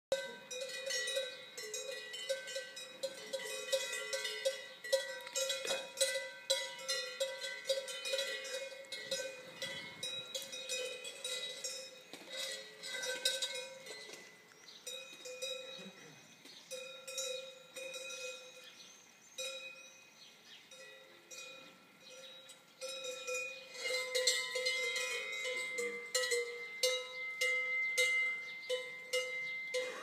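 Cowbells on several cows clanking and ringing irregularly as the cows move about and drink, several bells of different pitches at once. The ringing dies down for a stretch past the middle and grows louder again for the last several seconds.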